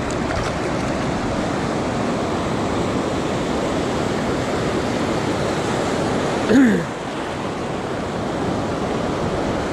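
Small, flat ocean surf washing and foaming over the sand at the water's edge: a steady rush of water. About six and a half seconds in there is a brief, louder sound that falls in pitch.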